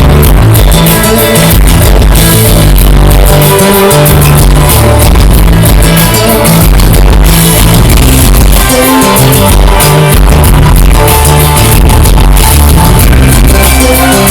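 Loud music with heavy, pulsing bass and a steady beat, played through a speaker as a sound test.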